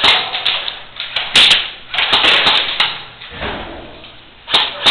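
Airsoft guns firing in an irregular string of sharp snaps and clacks, shots coming singly and in quick clusters, echoing in a large indoor hall.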